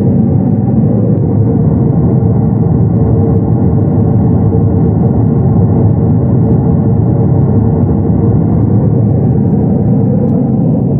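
Pink noise test signal played very loud through a pair of WPU 1505X woofers in a car-trunk speaker box. It is a steady, unbroken rush of noise, heavy in the bass and mids with little treble, run for a sound-pressure-level reading that peaks at about 98 dB.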